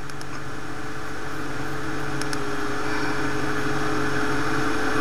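A steady mechanical hum with a constant mid-pitched tone over a low drone, slowly getting louder.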